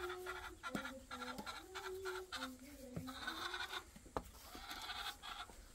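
Hens clucking: a string of short, flat-pitched calls one after another, with a few soft knocks.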